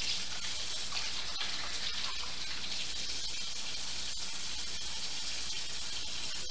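Kitchen sink faucet running steadily while hands are washed under it.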